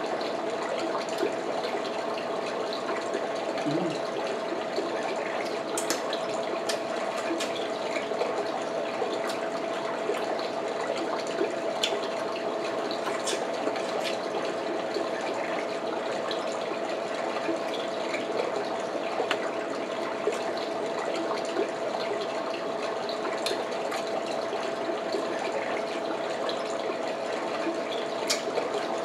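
Steady rushing hiss with a faint constant hum under it, and small clicks and smacks of eating scattered through.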